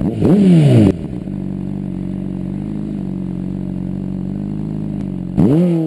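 Sport bike engine: the revs drop sharply at the start, then it runs steadily at low revs. Near the end there is a short, louder burst of revs that falls away again.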